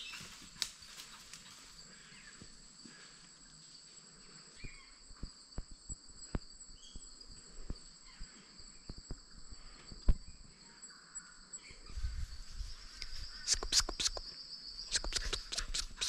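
Insects trilling steadily in the bush as two high, even tones. Scattered snaps and crunches sound over them and grow louder and busier over the last few seconds.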